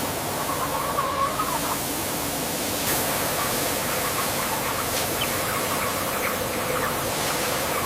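Broiler chickens clucking, with scattered short calls over a steady hiss.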